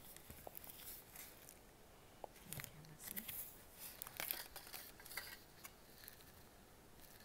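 Faint clicks and scrapes of a small plastic spoon against a plastic candy-kit tray while mixing, busiest in the middle.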